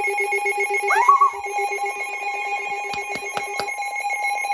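Several weather-alert radios sounding at once, Midland WR400 among them: a fast-pulsing low alarm beep over a steady higher alert tone. A few sharp clicks come near the end, then the low beeping stops and a steady tone of about 1 kHz comes in, typical of the NOAA Weather Radio 1050 Hz warning alarm. A person gives a short shout about a second in.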